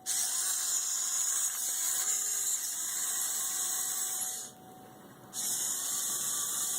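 The VEX servo motors driving a small home-built robot car whine as it drives, stopping for about a second around the middle and then starting again.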